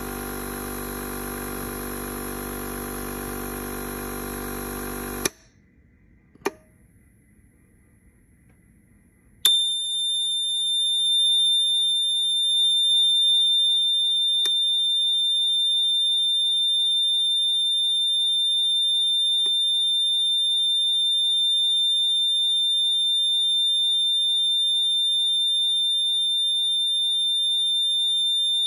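Replacement air compressor motor running with a steady hum, cutting off abruptly about five seconds in, followed by a sharp click. A few seconds later a continuous high-pitched electronic buzzer tone starts and holds steady, with a couple of faint ticks under it.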